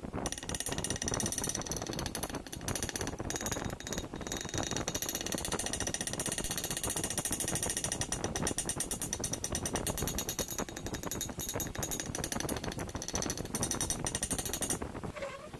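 Pneumatic air hammer rattling rapidly and steadily against an aluminium engine crankcase, tapping the old paper gasket loose for removal, with a high whine over the hammering. It stops suddenly shortly before the end.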